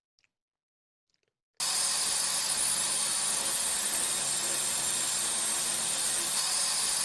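Stanley SST1801 table saw starting up abruptly about a second and a half in, then running steadily at full speed with a loud, even hissing whine as it makes its first trial cut in wood.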